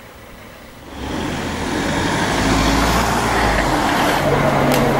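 A motor vehicle's engine running with a steady low hum and road noise, setting in about a second in after a quiet start.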